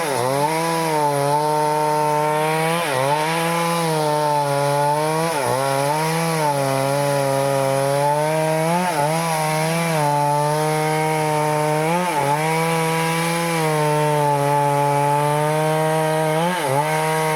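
Stihl chainsaw running at high revs while cutting into a teak trunk. The engine note sags briefly every two to four seconds as the chain bites into the wood under load, then picks back up.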